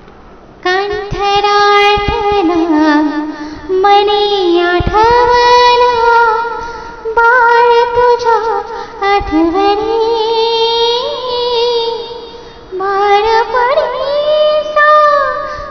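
A woman singing a Marathi mangalashtak, a sung wedding blessing verse, in long melodic phrases with sliding ornaments on the held notes. The voice comes in about half a second in and pauses briefly between phrases near the end.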